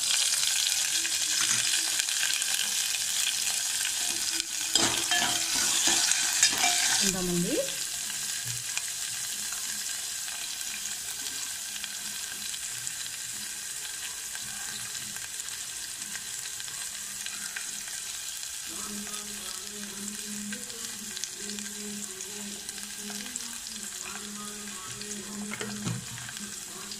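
Green chillies and salt sizzling in hot oil with cumin and mustard seeds in a metal pot, the tempering for rasam. The sizzle is loudest for about the first seven seconds, just after the chillies go in, then settles to a steadier, quieter fry.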